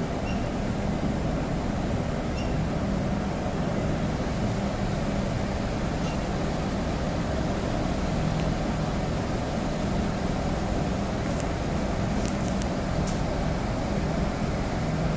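Railway wagon traverser running as it moves a wagon sideways across the tracks: a steady mechanical drone of its drive machinery with a low hum, and a few faint clicks about twelve seconds in.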